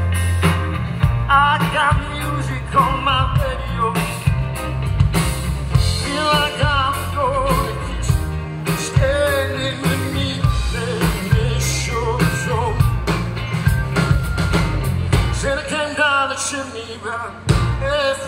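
Live rock-style band music: a singer over drums and heavy bass, amplified through a PA.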